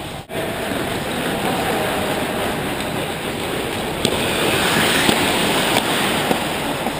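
Ice hockey play on a rink: skates scraping and carving on the ice as a steady hiss, with a few sharp clacks from about four seconds in.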